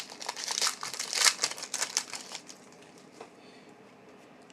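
Plastic wrapper of a trading card pack crinkling in quick bursts as it is torn open and handled. The crinkling dies away about two and a half seconds in, leaving only a faint click.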